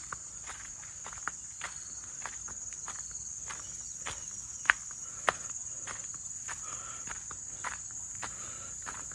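Steady high-pitched drone of insects, with irregular clicks and footfalls over it; two sharper knocks stand out near the middle.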